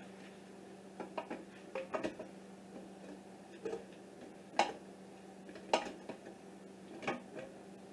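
Glass wide-mouth pint canning jars clinking against each other and against the metal inner pot of an electric pressure canner as they are set in place. The clinks are sharp, separate and irregular, the loudest about halfway through and near the end, over a faint steady hum.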